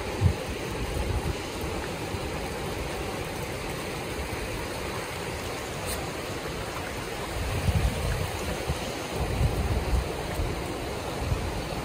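Ocean surf washing onto a beach, a steady rushing, with wind buffeting the microphone in low gusts in the second half.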